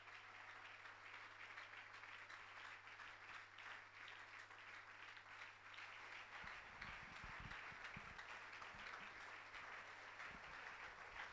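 Faint congregation applause, an even crackle of many hands clapping, over a low steady hum, with a few low thumps about six to eight seconds in.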